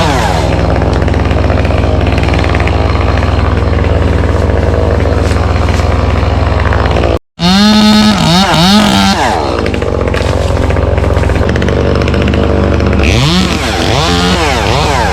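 Gas chainsaw revving up and down again and again while cutting, over a steady lower engine drone, with a brief dropout about seven seconds in.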